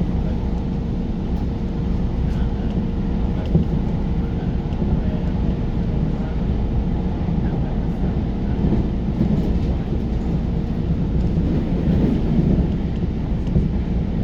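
Running noise inside a JR Tokai New Rapid electric train at speed: a steady low rumble of the wheels on the rails. A thin steady hum sits over it and fades out about halfway through.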